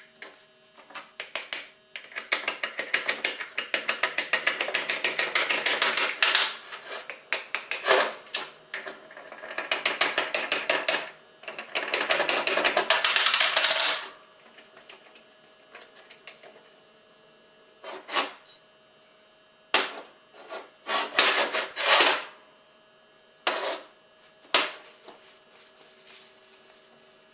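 Fast, repeated scrubbing strokes on a metal machine part during cleaning, in long runs for about the first fourteen seconds, then in short separate bursts with pauses between them.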